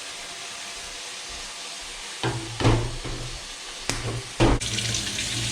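Food frying in a pan with a steady sizzle, then water starting to run from a tap near the end.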